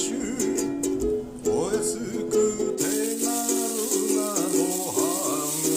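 Ukulele playing chords, with a voice singing a wavering melody over it.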